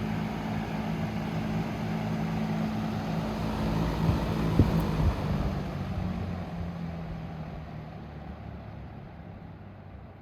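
Vintage Dominion box fan running with a steady motor hum and air rush, then switched off with a click about four and a half seconds in; the hum stops and the blade and air noise fade away as the fan coasts down.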